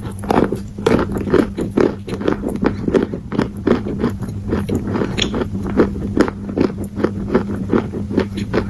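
Big bites of dry edible clay crunching between the teeth and being chewed, about three crisp crunches a second, over a steady low hum.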